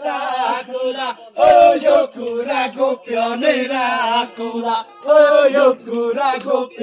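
Men singing a chant-like song together without accompaniment, with long held notes.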